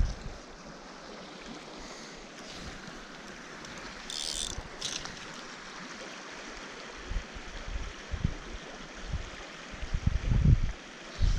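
Fast mountain stream water rushing steadily, with low wind buffeting on the microphone about ten seconds in.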